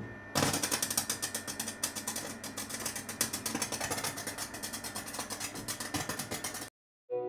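Electric arc welder crackling as steel rebar is welded onto a steel scaffold tube: a fast, even sizzle of spatter that starts about half a second in and cuts off abruptly near the end.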